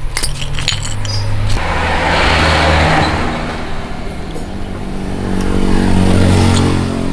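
A motor vehicle's engine running, its pitch shifting up and down, with a rush of noise about two seconds in. A few light clicks sound in the first second.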